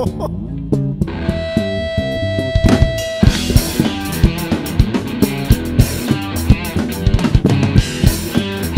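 A live band with electric guitar, bass guitar and drum kit plays an instrumental intro. A bass and guitar line opens with a single high note held for about two seconds. About three seconds in, the drums and cymbals come in with the full band.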